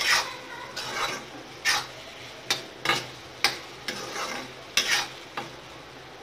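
Okra and minced meat being stirred in a frying pan: irregular scraping strokes against the pan, roughly two a second, over a faint sizzle. The stirring stops about five and a half seconds in, leaving only the faint sizzle.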